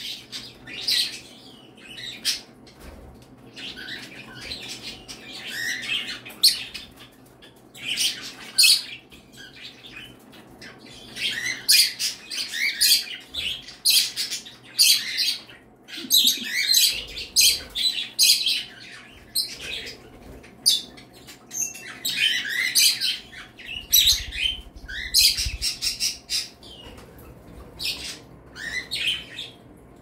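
A room of pet small parrots, budgies among them, chirping and chattering in quick overlapping bursts with short pauses between.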